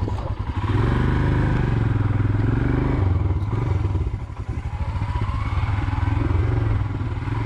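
Royal Enfield Himalayan's 411 cc single-cylinder engine running as the motorcycle is ridden down a steep dirt trail, the engine sound easing off briefly about four seconds in and then picking up again.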